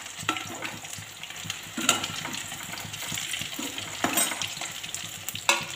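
Whole boiled potatoes sizzling steadily as they deep-fry in hot oil, with a few clinks of a metal slotted spoon against the pan as they are turned.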